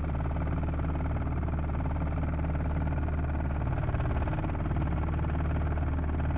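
2003 Dodge Ram 2500's 5.9-litre Cummins inline-six turbodiesel running rough and misfiring badly, a steady uneven chugging hum. The fault persists even though the injectors have tested good.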